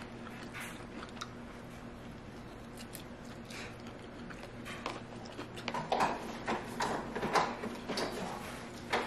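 Light clicks of a plastic fork against a food container, then from about six seconds in a run of louder knocks, clatters and rustles as an infant car seat carrier is picked up and handled.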